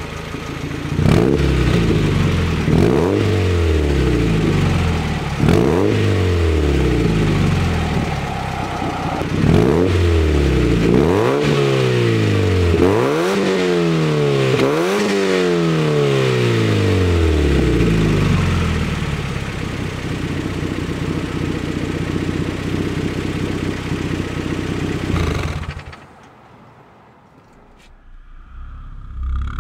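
Mazda Miata's 1.8 L BP-5A inline-four through a Goodwin Racing RoadsterSport 3 cat-back exhaust, revved about seven times from idle with each rev rising and falling back, the later ones closer together. It then settles to a steady idle, and the sound drops away near the end.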